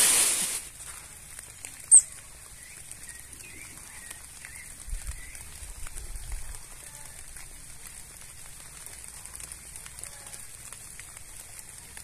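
Heavy rain hiss that cuts off within the first second. Then a quiet outdoor backdrop with faint, scattered bird chirps, one sharp high chirp about two seconds in, and a brief low rumble a little after the middle.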